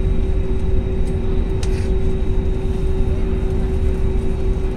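Steady cabin noise of an airliner taxiing: a deep rumble with a steady hum from the engines, and a brief click about one and a half seconds in.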